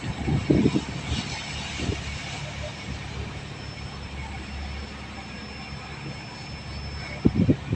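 Fishing boat's engine running at a steady drone.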